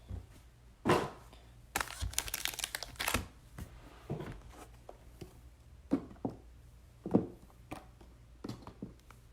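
Trading cards and their wrapping being handled: scattered rustling and crinkling with light clicks and taps.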